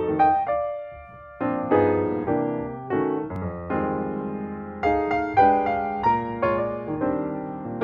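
Piano music: notes and chords struck one after another, each fading away, with a short lull about a second in before the playing picks up again.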